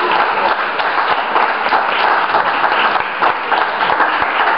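Small audience clapping steadily.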